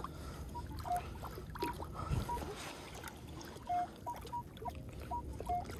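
Minelab Equinox 900 metal detector giving short target-tone beeps as its coil is swept over a buried target, the tone jumping between a higher and a lower pitch, about ten beeps in all.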